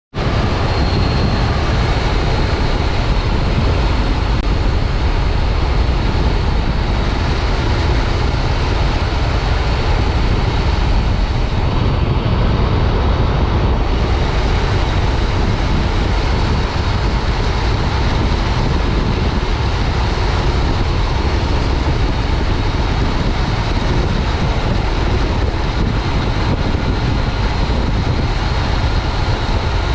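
Motorcycle riding: a Yamaha FJ-09 Tracer's 847 cc three-cylinder engine running steadily under heavy wind and road rush, heard from a helmet chin-mounted microphone.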